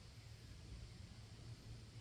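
Near silence, with only a faint steady low background rumble.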